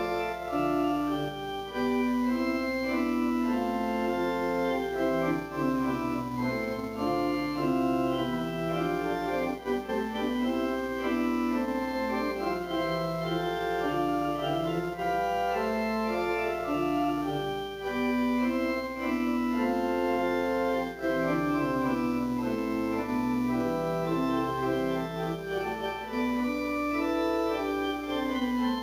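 Organ music: slow, held chords with the lower notes stepping up and down in long phrases.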